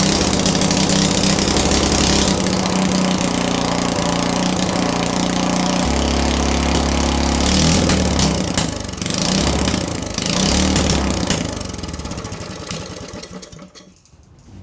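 Single-cylinder Briggs & Stratton small engine, with its stock cylinder head refitted, running steadily and changing speed a few times. Near the end it winds down and stops.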